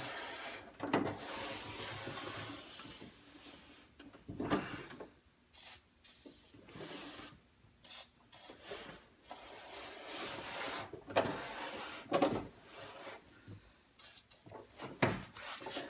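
Rubbing and scraping with several sharp knocks, from hands working in the window regulator mechanism inside a 1989 Toyota pickup's door while it is being lubricated, with a short hiss a little past the middle.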